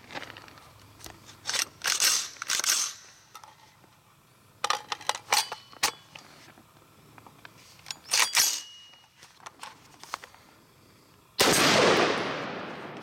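Sharp metallic clacks of an HM Defense AR-15 being handled in three short bursts as a magazine is seated, then near the end a single loud rifle shot that rings out and slowly fades.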